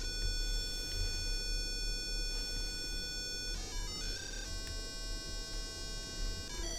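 Homebrew 8-bit CPU's audio circuit playing its tune as buzzy electronic tones: a long held note, a few quick notes, a second held note, then quick notes again near the end. A low hum runs underneath.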